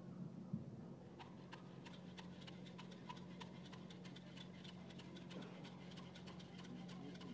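Faint, irregular clicking and ticking, starting about a second in, over a steady low hum.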